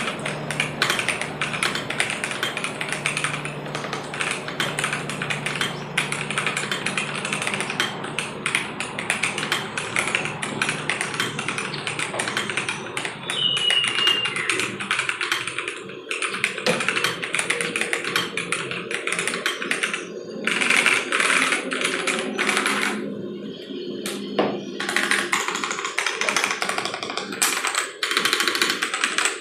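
Typing on a KBDFans KBD67 Lite R2 mechanical keyboard with Boba U4T tactile switches in a polycarbonate plate, under PBT Cherry-profile keycaps. It makes a fast, continuous patter of keystrokes, broken by a couple of short pauses about 20 and 23 seconds in.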